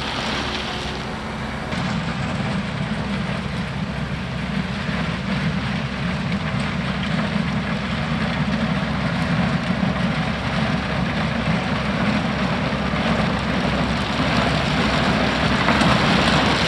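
John Deere compact tractor's diesel engine running under load while pushing into a gravel pile, getting louder toward the end; the tractor has the power but lacks traction on the pile.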